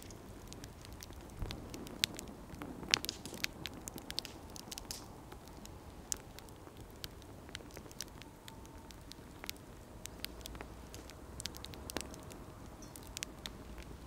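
Wood campfire crackling, with irregular sharp pops over a low hiss of burning; the loudest pop comes about three seconds in.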